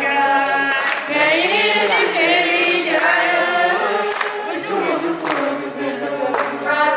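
A group of voices singing a song together, the pitch rising and falling without a break.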